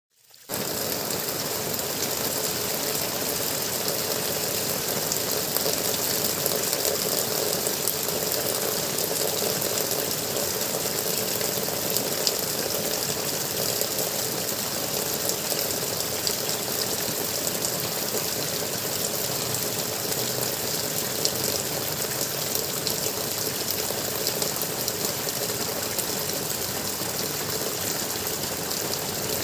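Water gurgling steadily, a continuous rushing splash with small ticks of droplets in it.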